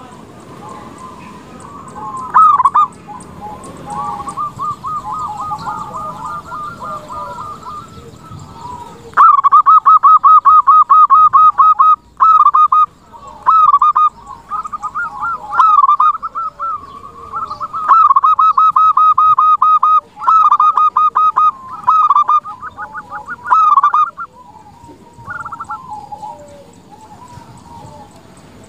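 Zebra dove (perkutut) singing its rolling, rapidly pulsed coo, phrase after phrase. The phrases are soft for the first few seconds, then loud from about a third of the way in, with short pauses between them.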